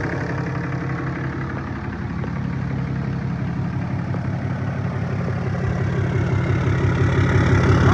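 The 2008 Dodge Ram 2500's 6.7-litre Cummins inline-six turbo diesel idling steadily. It grows louder near the end as it is heard at the exhaust tip.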